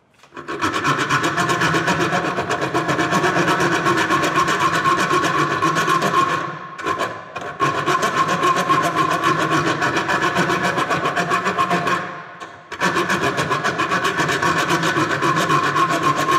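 Metric thread file, its 1.5 mm-pitch face, rasped back and forth across the damaged threads of a steel bolt held in a vise, in rapid, even strokes, re-cutting the damaged external thread. The filing stops briefly twice, about six and a half seconds and twelve seconds in.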